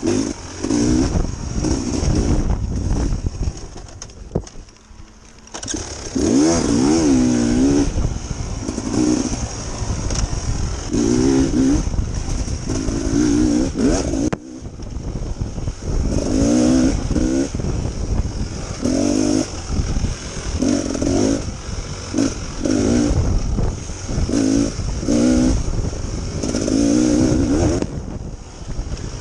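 Dirt bike engine revving up and dropping back again and again as the rider blips the throttle along the trail, with a brief lull about five seconds in. A steady high hiss runs under it.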